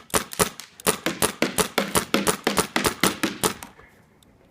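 DG/E1 paintball gun firing a rapid string of shots, about seven a second, which stops about a second before the end.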